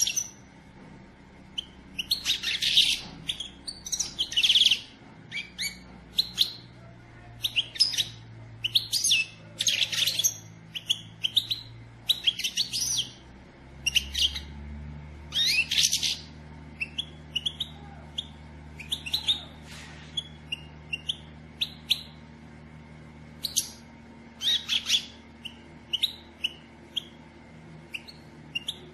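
European goldfinches twittering: irregular clusters of quick, high chirps, a few of them louder, in the chatter said to be that of female goldfinches, used to stir a male to sing.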